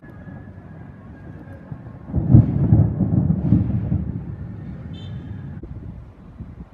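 Thunder: a low rumble that rises suddenly into a loud peal about two seconds in, then rolls on and fades over the next couple of seconds.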